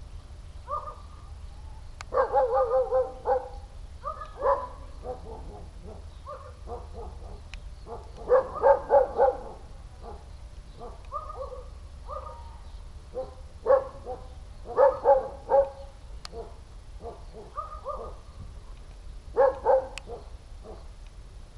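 A dog barking in several bouts of quick barks, with pauses of a few seconds between bouts, over a steady low rumble.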